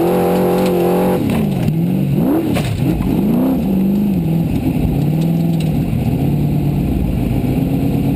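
Formula Offroad buggy's engine heard from inside the cockpit: held at high revs, then about a second in the revs drop and swing up and down several times as the throttle is worked, with a few knocks. In the second half it runs lower and steadier.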